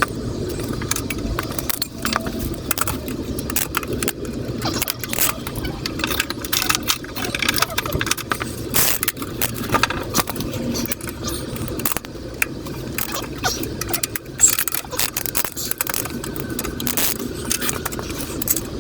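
Irregular metallic clinking and clicking of tools and motorcycle parts being handled, close to the microphone, during work on a Honda Super Cub C125's drive chain.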